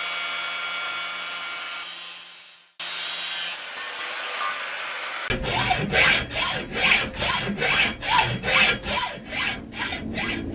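Angle grinder cutting sheet steel, a steady high whine that dies away about three seconds in. After a brief further stretch of steady whine, a hacksaw saws a steel rod clamped in a vise, its strokes going back and forth about two to three times a second.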